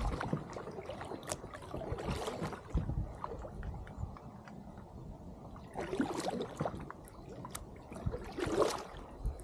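Kayak paddle dipping into the water beside an inflatable kayak: a few splashing strokes with gurgles and drips, spaced a few seconds apart, and light clicks between them.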